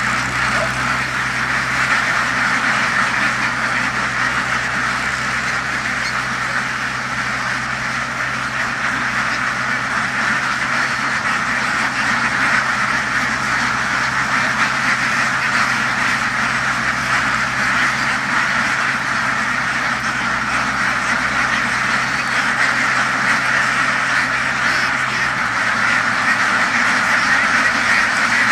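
A large flock of laying ducks quacking continuously, many voices overlapping into a dense chatter. Underneath runs a steady low engine hum.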